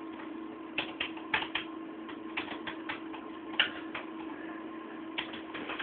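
Someone typing on keys: irregular light clicks, a dozen or more in quick uneven runs, over a low steady hum.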